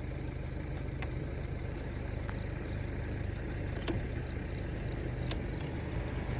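Car engine idling steadily, heard from inside the cabin, with a few sharp clicks.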